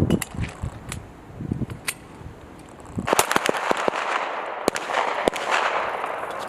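Several handguns firing on a range: scattered single shots at first, then a quick run of overlapping shots about three seconds in, followed by a few more.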